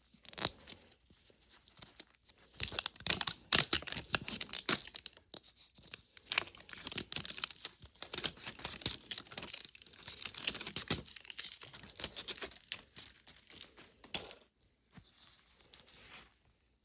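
Wrapper being torn and crinkled off a Mini Brands surprise capsule ball by hand: a run of crackling tears and rustles, loudest a few seconds in and tapering off near the end.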